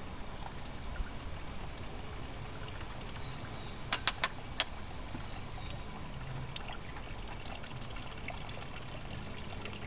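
Grape juice trickling steadily out of a basket wine press into a plastic tub as the grapes are pressed. About four seconds in comes a quick run of four sharp clicks.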